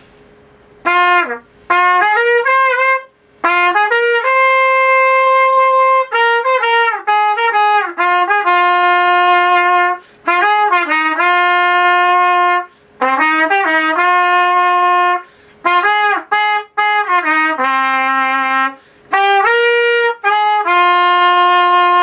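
Solo trumpet playing a G minor tune on a mouthpiece fitted with the number 25 backbore, phrase by phrase with short breath breaks, mixing quick runs of notes with long held notes.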